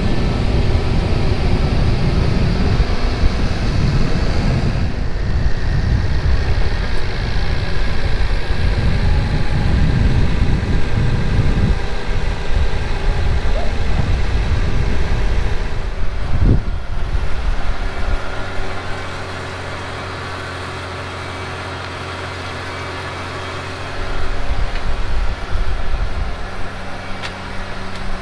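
Versatile 365 tractor's diesel engine running under a heavy low rumble as the tractor moves, then settling to a steady idle about two-thirds of the way through, with a rougher low rumble returning near the end.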